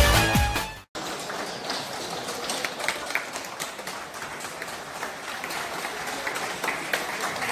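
Electronic intro music cuts off within the first second. Then many people clap together in a steady, dense round of applause.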